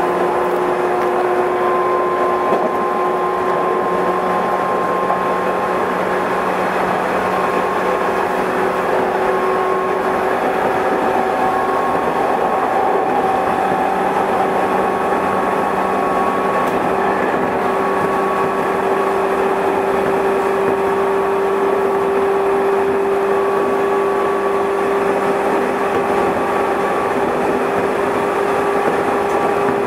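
Running noise of a JR West 213 series electric multiple unit: a steady rumble of wheels on rail with the whine of its traction motors and gearing. The whine climbs slowly in pitch as the train gathers speed.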